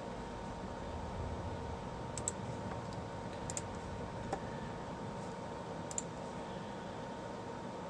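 A few sharp computer clicks, two of them quick double clicks, over a steady low hum of room tone with a thin steady tone in it.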